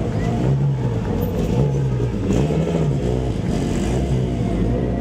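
Classic rally car engine revving, its pitch rising and falling several times.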